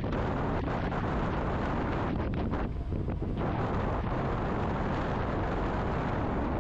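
Steady wind buffeting the microphone: a dense, unbroken low rumble.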